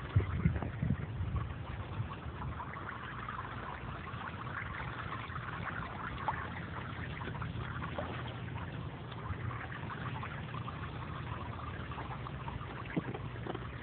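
Water splashing and trickling into an inflatable paddling pool, a steady patter, with a few low bumps in the first second or so.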